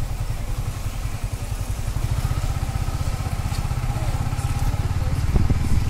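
Motorcycle engine running steadily at low speed, a fast even low pulsing.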